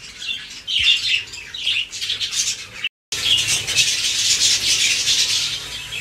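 A flock of budgerigars chirping and chattering in an aviary. The sound cuts out for a moment about halfway, then the chatter comes back denser.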